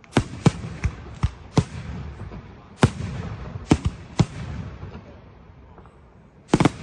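Fireworks going off in a run of sharp bangs, about nine in the first four and a half seconds, with rumbling echoes between them. It ends in a close double bang near the end.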